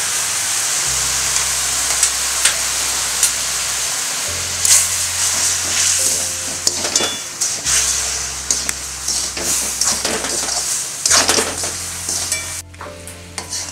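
Jaggery with a little sugar and water sizzling in a kadhai, stirred and scraped with a spoon as it melts into syrup. The steady hiss eases off near the end.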